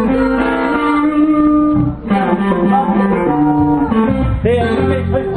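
Guitars played together in a loose jam, with long held notes layered over each other. One note is bent up and back down near the end.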